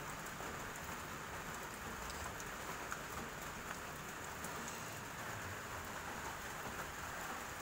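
Steady, even hiss of background noise, with a few faint ticks.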